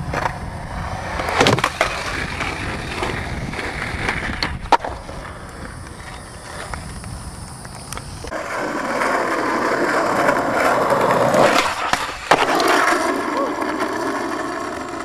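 Skateboard wheels rolling over rough concrete and asphalt, louder in the second half, with a few sharp clacks of a board hitting the ground.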